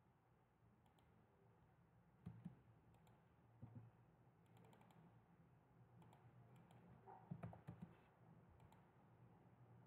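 Faint computer keyboard keystrokes and mouse clicks in small scattered clusters, over a low steady hum.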